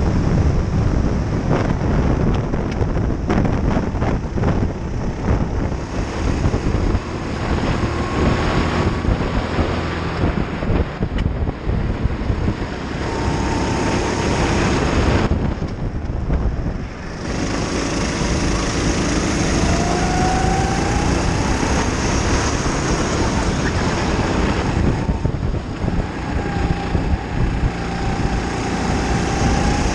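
Racing kart's engine running at race speed under heavy wind buffeting on an onboard microphone, its revs rising and falling through the corners. The high end drops out briefly about halfway in.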